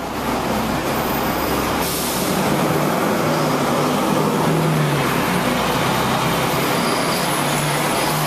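Hong Kong double-decker tram under way, heard from on board: a steady running noise of motor hum and wheels on the rails, mixed with street traffic. A brief hiss about two seconds in.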